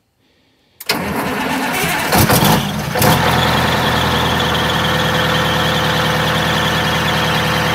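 Blue Bird Wanderlodge bus's rear-mounted diesel engine cranked by the starter, catching after about two seconds and settling into a steady idle. A steady high-pitched squeal runs over the idle from the alternator belt, which is loose enough to squeak.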